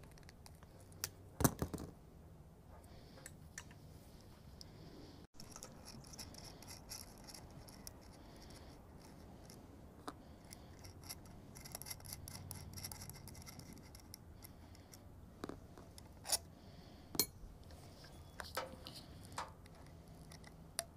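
Hand wire strippers clicking and snipping on a wire about a second and a half in, then faint scraping and handling of wires and a small hour meter, with a few sharp clicks near the end as crimp connectors are pushed onto the meter's terminals.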